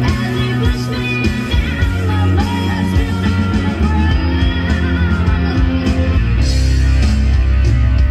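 Rock song with guitar and vocals, played back through the restored Phase Linear 2000 stereo preamp and loudspeakers during its input check, with a deep bass note held from about two-thirds of the way in.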